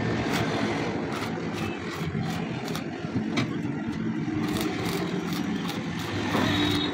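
Steady low hum of a stick-welding set, with scattered sharp crackles and ticks from the arc and electrode work on the steel gate frame; it gets a little louder near the end.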